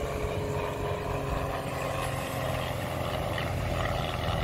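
Engine of a small display aircraft droning overhead, a steady tone that sinks slightly in pitch.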